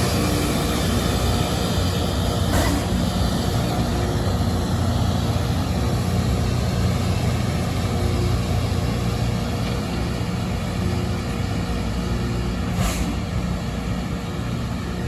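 Loram rail grinder train's diesel engines running steadily under a wide rumble, slowly fading. Two brief clicks stand out, one early and one near the end.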